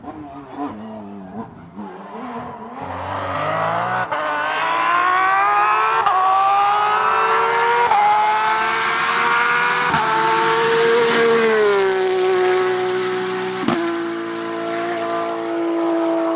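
Rally car accelerating hard through the gears on a stage. The engine note climbs, with a short break at each gear change about every two seconds, and is loudest in the middle as the car comes close.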